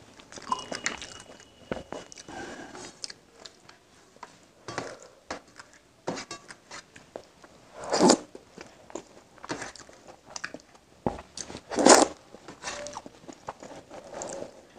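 Close-miked eating by hand: wet chewing and mouth clicks from a mouthful of egg curry and rice, with fingers mixing food on a steel plate. Two louder mouthfuls come about eight and twelve seconds in.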